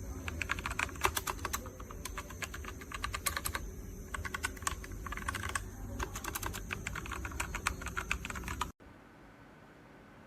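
Rapid typing on a mechanical keyboard with red linear switches: quick, irregular keystroke clicks that stop abruptly near the end.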